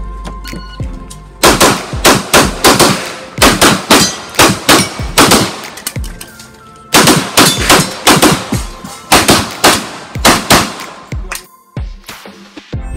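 Pistol fired rapidly in two fast strings of many shots, several a second, with a break of about a second between the strings.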